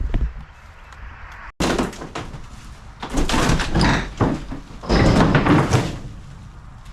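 Shed demolition: three loud crashing, banging bursts, each about a second long, as the wood and panelling of an old shed are broken apart.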